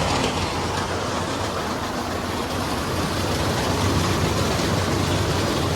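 Farm machinery running steadily while unloading grain: an engine at wide-open throttle driving PTO-powered unloading equipment, a constant drone with a low hum.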